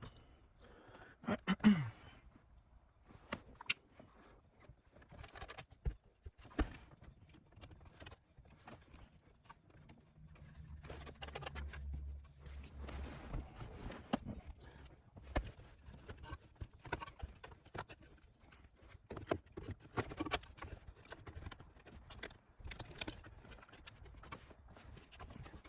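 Irregular light clicks and knocks, with a low rumble from about ten to fourteen seconds in.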